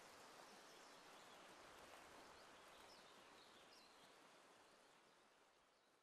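Near silence: faint outdoor background noise with a few faint high chirps in the middle, fading out near the end.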